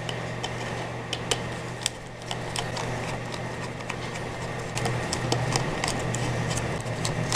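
Small irregular metallic clicks and ticks from a screwdriver working the tiny screws of a laptop hard-drive caddy, over a steady low hum.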